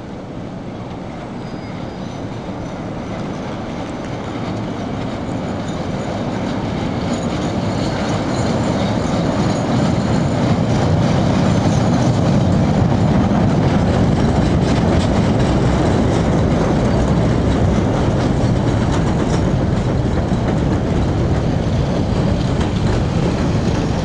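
A Chicago 'L' Blue Line rapid-transit train running on elevated track. It grows louder over the first ten seconds or so as it approaches, then runs loud and steady as it comes alongside the platform, with a clickety-clack of wheels on the rails.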